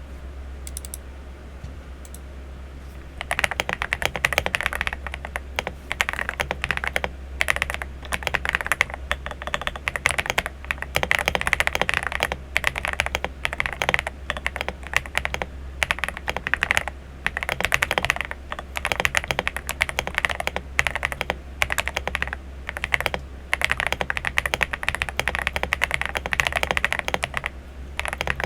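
Typing on a Royal Kludge RK M75 mechanical keyboard with AKKO Cream Yellow Pro linear switches and SAL Ocean Star keycaps: fast, steady keystrokes in runs with short pauses, starting about three seconds in. A low hum runs underneath.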